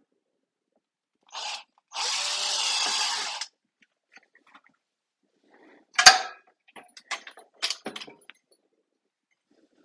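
Cordless drill giving a short spin, then drilling a hole into the base of a CADAC Safari Chef 2 gas grill for about a second and a half. A few seconds later comes one sharp knock followed by a string of lighter clicks and knocks.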